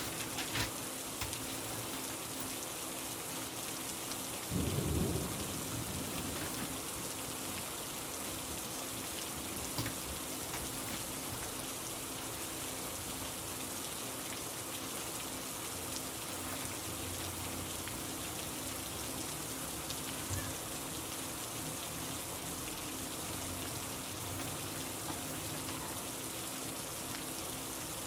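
Steady rain, an even hiss of falling drops, with a brief low rumble about five seconds in.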